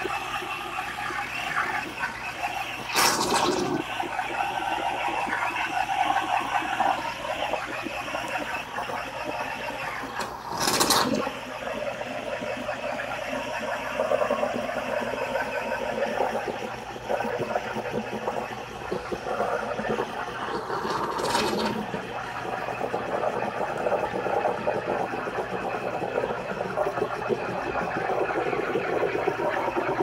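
Steam wand of a Farberware Dual Brew espresso and coffee maker frothing milk in a glass mug: steady hissing, with three brief louder bursts about 3, 11 and 21 seconds in.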